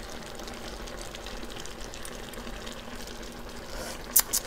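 Soup simmering in a stainless steel pot over a gas burner: a steady, even watery hiss. About four seconds in come two sharp metal clinks of a spoon.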